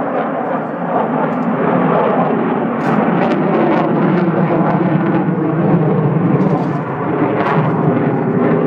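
Loud jet engine noise from a Sukhoi jet aircraft flying a display pass: a steady, heavy rumble broken by sharp crackles.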